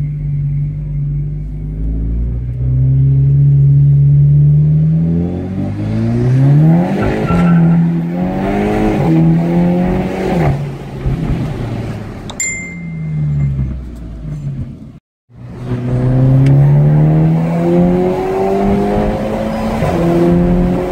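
Volkswagen Golf GTI Edition 35's turbocharged 2.0-litre four-cylinder through a custom stainless exhaust, heard from inside the cabin under hard acceleration. The engine note climbs and drops back at each upshift. It cuts off briefly, then a second acceleration run climbs again through the gears.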